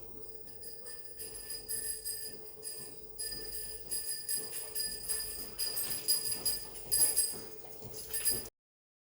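Small bell on a search dog jingling irregularly as the dog moves, over a faint steady hum. The sound cuts off suddenly near the end.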